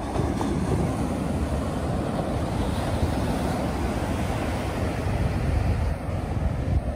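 Ocean surf washing with wind buffeting the microphone: a steady, deep rushing noise.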